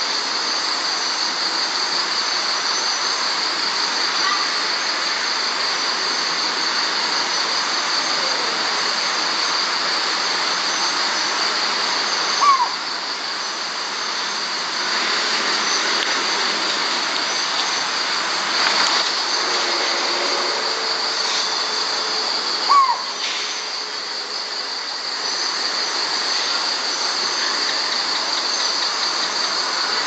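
Night chorus of crickets and other insects: a steady, high, continuous trill over a hiss. Two short, sharp calls falling in pitch cut through it, one about twelve seconds in and another about ten seconds later.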